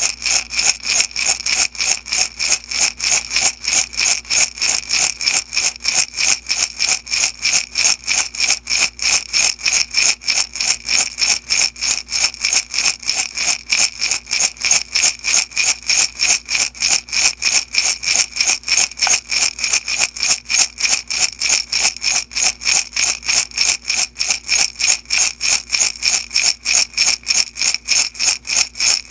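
Small beads shaken back and forth in a glass jar, a steady rhythmic rattle of about three to four shakes a second, bright and clinking against the glass.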